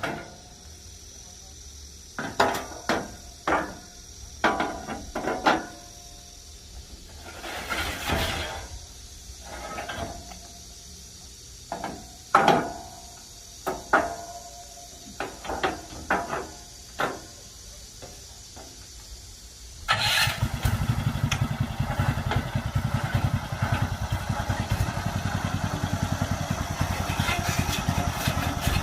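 Short bursts of talking and a few knocks, then, about two-thirds of the way in, the small engine of an agricultural transport carrier starts suddenly and runs steadily.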